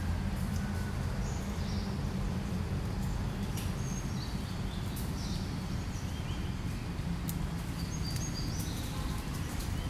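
Outdoor background noise: a steady low rumble with scattered short, high chirps and a few faint clicks.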